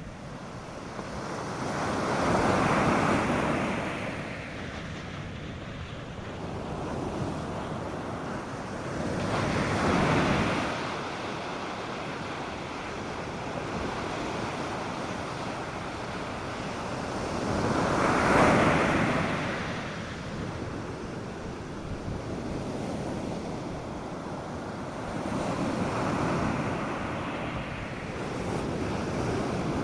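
North Sea surf breaking on a sandy beach: waves rush in and fall back four times, about every eight seconds, over a steady wash of water.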